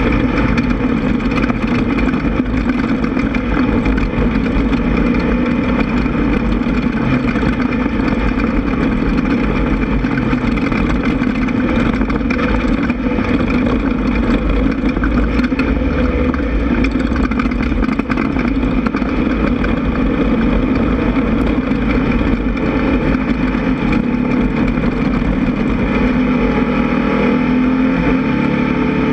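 Air-cooled 1600 cc VW engine of a Class 1600 off-road race buggy running hard at steady high revs, its pitch rising and falling only slightly.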